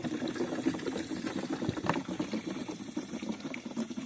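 Water gurgling and splashing out of a bullet-holed plastic water jug, with a sharp click a little under two seconds in. A high hiss swells and fades about every second and a half.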